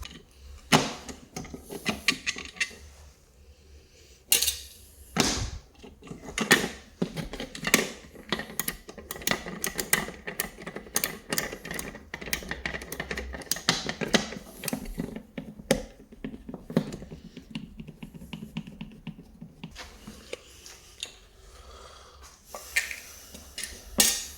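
Rapid, irregular clicking, tapping and rattling of small hard objects being handled, with several louder knocks, thinning out near the end before one sharp click.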